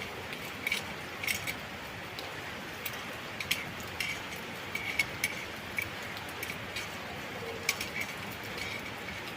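Irregular short metallic clicks and taps of a screw being driven and tightened with a hand tool into a wall-mounting bracket, about fifteen over the stretch, unevenly spaced.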